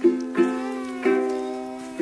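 Background music: a ukulele strumming chords, three strums in quick succession, each fading before the next.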